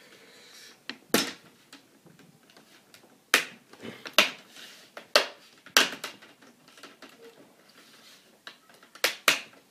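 Plastic screen bezel of a Toshiba Satellite C55-A5311 laptop being pried off by hand, its clips snapping loose one by one: about seven sharp snaps at uneven intervals, two close together near the end.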